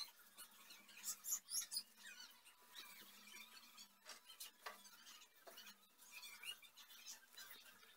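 Faint, scattered high-pitched chirps and squeaks over a low steady hum, with a few soft ticks.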